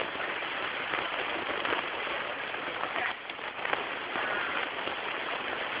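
Steady hiss of outdoor background noise with a few faint knocks.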